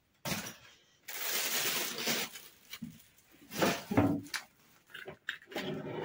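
Plastic oven bag and aluminium foil crinkling and rustling in irregular bursts as they are torn open and pulled back from a roast chicken; the longest rustle comes about a second in.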